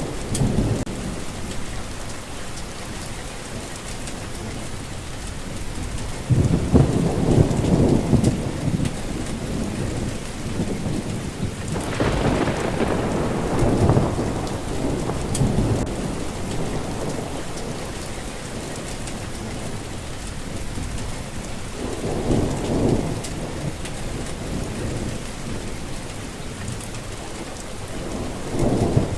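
Steady rain with thunder rumbling several times. The loudest peal, about twelve seconds in, opens with a sharper crack before rolling off.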